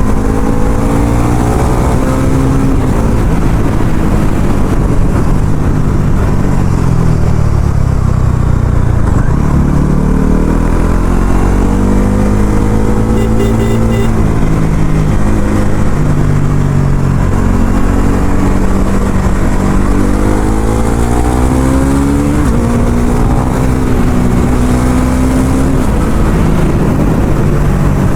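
Bajaj Pulsar NS400Z's single-cylinder engine through its stock exhaust, ridden hard. The revs rise and fall several times, dropping low about nine seconds in, then climbing in long pulls about ten and twenty seconds in before holding steady.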